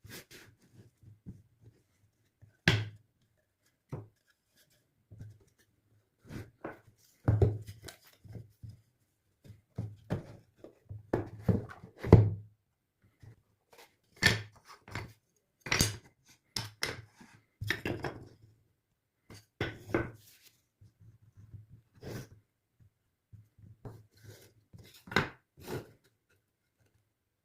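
Irregular knocks, taps and short scrapes of wood being worked and handled, with no steady rhythm; the loudest knock comes about twelve seconds in.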